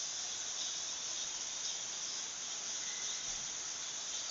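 Steady, even, high-pitched hiss of rain falling.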